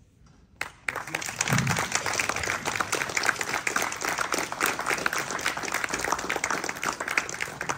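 Audience applauding, starting about half a second in after a brief pause and dying down near the end.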